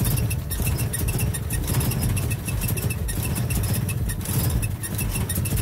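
Idling engine with a rapid, steady squeak and rattle from the clutch release fork's ball pivot. The owner puts it down to the pivot and fork being dry and unlubricated; the squeak stops when the clutch pedal is touched.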